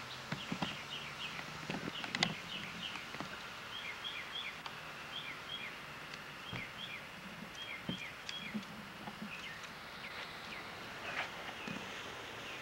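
Small birds chirping, many short high notes repeating over steady outdoor background noise, with a few sharp clicks, the loudest about two seconds in.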